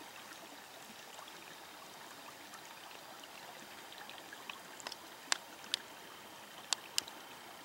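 Faint, steady trickle of a small mountain creek. About six sharp clicks come in the second half.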